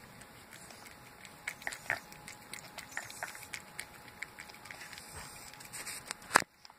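A cat eating raw food from a bowl: scattered wet chewing and smacking clicks, with congested, snuffly breathing from a cold. A sharp click near the end is the loudest sound.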